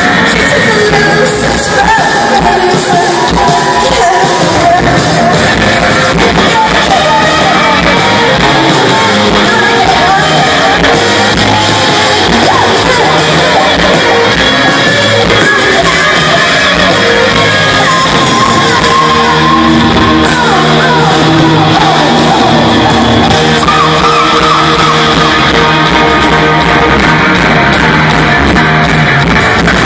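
Live pop-rock band playing loud in a large hall, with a female lead singer singing and yelling over electric guitars and drums.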